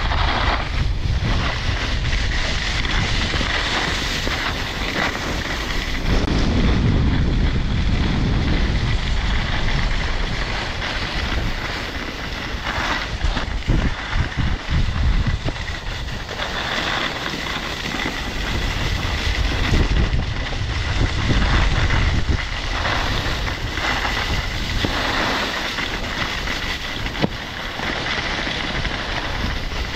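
Wind rushing over an action camera's microphone during a downhill run on snow blades, mixed with the continuous scraping hiss of the short skis sliding on packed snow. It swells and eases as speed changes, with a few short scrapes or bumps near the middle.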